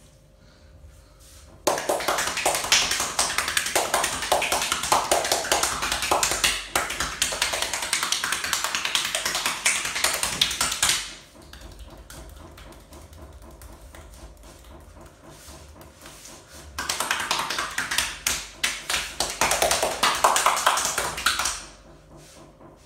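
Hands tapping and slapping quickly on the body in a percussive massage. The strikes come in two long bouts, one of about nine seconds and one of about five seconds, with a quieter stretch between.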